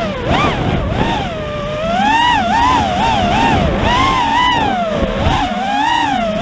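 FPV racing quadcopter's motors and propellers whining. The pitch swoops up and down rapidly as the throttle is worked through the track's turns.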